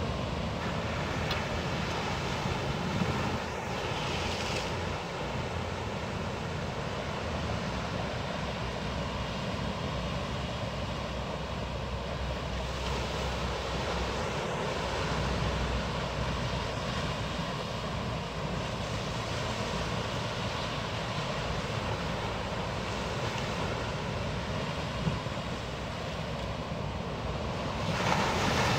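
Steady wash of sea surf mixed with wind rumbling on the microphone, growing louder near the end as a wave breaks.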